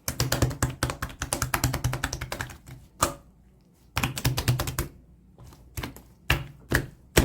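Old slime being mixed and squished by hand, crackling with rapid runs of small clicks and air-bubble pops. A single sharp pop comes about three seconds in, another run of clicks follows, then a few separate pops near the end.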